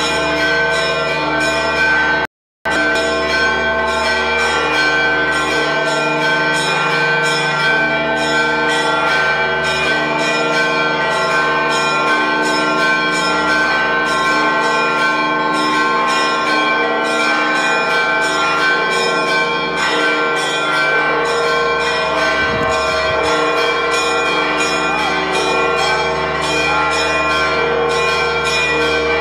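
Church bells pealing continuously, many bells struck in quick succession and ringing over one another, the peal that announces the Holy Fire being carried out of the Church of the Holy Sepulchre. The sound drops out for a moment about two seconds in.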